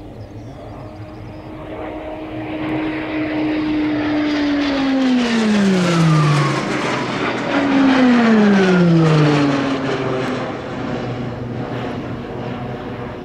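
Pilatus PC-21 turboprop trainer's Pratt & Whitney PT6A turboprop and propeller droning as it flies past. The sound swells to a peak mid-way and then fades, and the propeller's tone drops steeply in pitch twice as the aircraft goes by.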